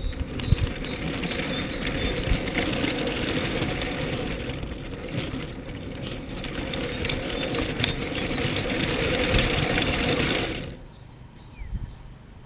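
Small electric motor and gearing of a LEGO train whirring, heard from on board as the train runs along plastic track. It cuts off suddenly about ten and a half seconds in, leaving a few faint clicks.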